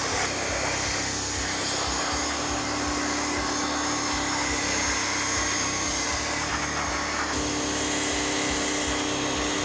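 Pressure washer running steadily: its pump motor hums under the hiss of the water jet rinsing spray-on spoke cleaner and softened brake dust off a motorcycle's spoke wheel and brake rotor.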